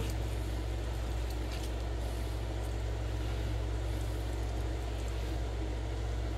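A steady low hum with a light hiss, an even background drone; no separate cutting sounds stand out.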